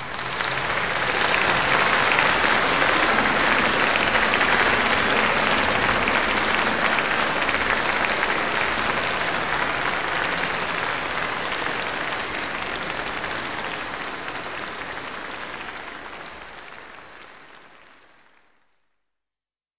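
Audience applauding at the close of a live symphony performance, at full strength at first and then fading out slowly over the last several seconds.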